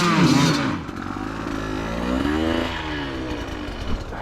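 Enduro motorcycle engine revved hard with its pitch swinging up and down, dropping away about a second in, then revved again more quietly with a rise and fall in pitch midway, as the bike is worked up a steep rocky trail.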